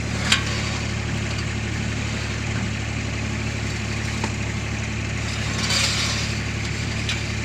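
Kubota DC-35 combine harvester's diesel engine running steadily, with a sharp click shortly after the start and a brief rushing hiss about six seconds in.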